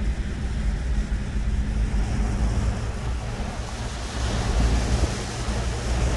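Steady low rumble of a car driving, heard from inside the vehicle, with a hiss of wind and breaking surf over it that swells about four seconds in.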